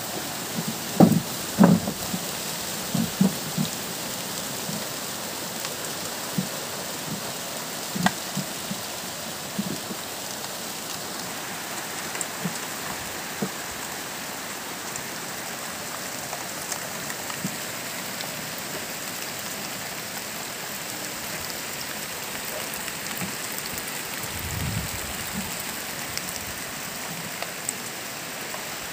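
Steady rain falling, with single drops tapping sharply over it, most often in the first few seconds.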